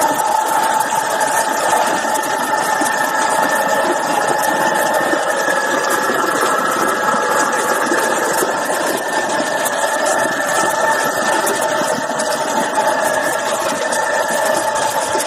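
Motor-driven clay-processing machine running steadily: an even mechanical noise with a few constant tones that does not change.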